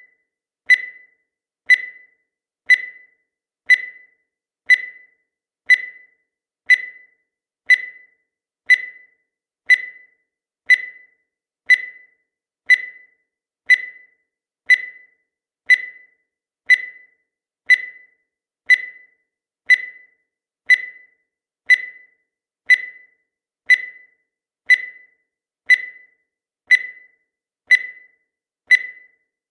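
Countdown timer sound effect: a short, high tick once every second, each one starting sharply and fading fast, repeating evenly.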